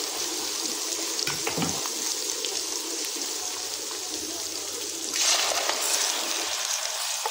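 Sliced onions sizzling steadily in hot oil in a steel pan. The sizzle gets louder about five seconds in, as ginger-garlic paste goes into the oil.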